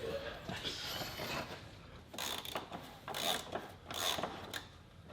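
Hand tools and metal parts being worked on car suspension: a series of short rasping, ratchet-like strokes about a second apart.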